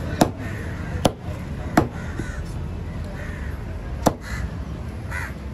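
Knife chopping through tuna onto a wooden cutting board: three sharp strikes in the first two seconds and another about four seconds in. Crows cawing several times in the background.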